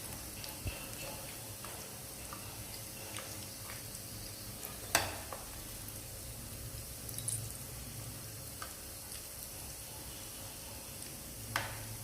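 Breadcrumb-coated minced-chicken balls (kola urundai) deep-frying in oil on a low flame, with a steady sizzle. A few sharp clicks are heard, the loudest about five seconds in.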